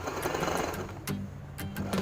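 Portable electric sewing machine running a decorative stitch, a steady mechanical rattle with regular clicks. It drops off briefly a little after a second in, then picks up again near the end, over background music.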